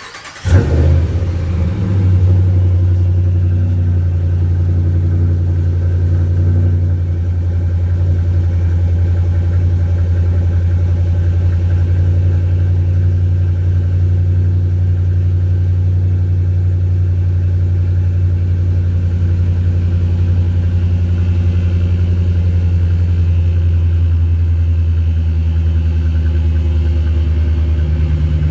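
Ram pickup truck's engine starting through a Flowmaster 40 Series muffler: a brief crank and a rev flare in the first second, then a steady, deep idle.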